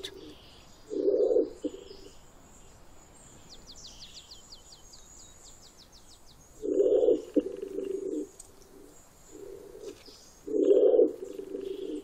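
Laurel pigeon cooing: several low coos, the loudest about a second in, around seven seconds and near the end. A small bird chirps high and quickly in the background.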